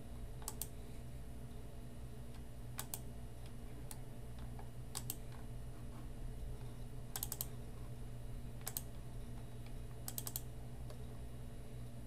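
Scattered clicks of a computer keyboard and mouse, a dozen or so, some single and some in quick clusters of two or three, over a steady low hum.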